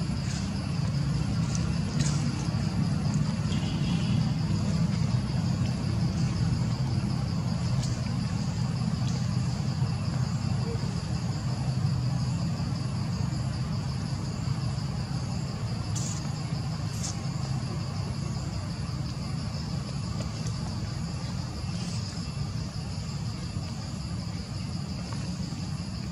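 Steady insect chorus, a continuous high, finely pulsing buzz, over a low steady rumble, with a few faint clicks.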